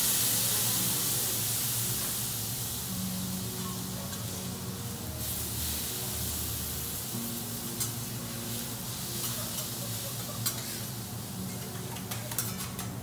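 Flambé on a hot teppanyaki griddle: liquor poured onto the steel plate around a wagyu steak flares and sizzles in a loud hiss that slowly fades. A few sharp clicks come in the second half.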